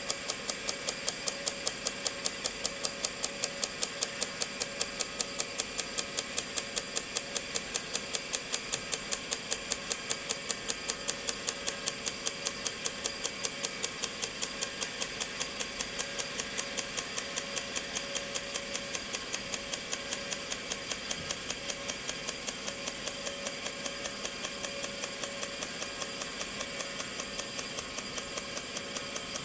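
RION SG-07 sound spectrograph running as it prints: its drum turning while the stylus carriage climbs, giving a rapid, even ticking several times a second over a steady mechanical hum.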